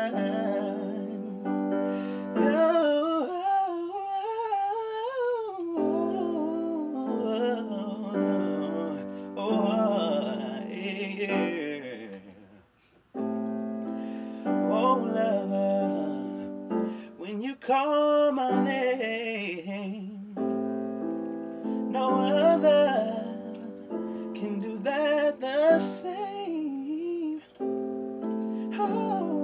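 A man singing with wavering, gliding vocal runs over sustained chords played on an electronic keyboard with a piano sound. The music breaks off briefly near the middle, then resumes.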